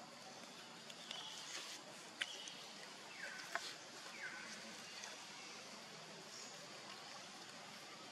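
Quiet forest ambience with a faint steady hiss, a few light clicks and short high animal calls, two of them falling in pitch near the middle.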